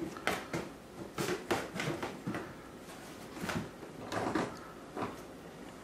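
Bernese Mountain Dog tearing and chewing a cardboard box: a string of short, irregular tearing and rustling noises.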